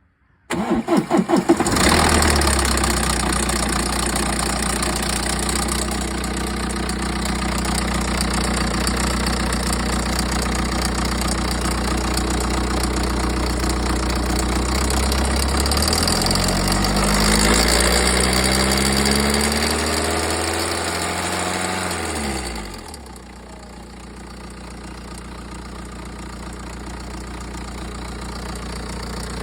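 BMW X1 xDrive18d's four-cylinder diesel engine cranking and starting, then idling steadily. Its revs rise and fall once in the middle, and the sound then drops to a quieter idle about three quarters of the way through. The owner finds the engine noise suspect.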